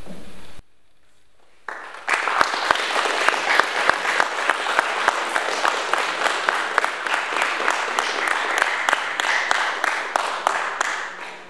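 Audience applauding. The clapping starts about two seconds in, holds dense and steady, and dies away near the end.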